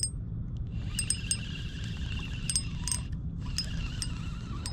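Scattered sharp metallic clicks and clinks of fishing gear as a hooked fish is reeled in, over a steady low rumble.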